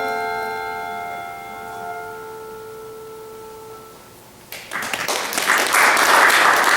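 Church tower bells ringing out a final chord, several steady tones fading away over about four seconds. About four and a half seconds in, a loud rushing noise starts suddenly and stays loud.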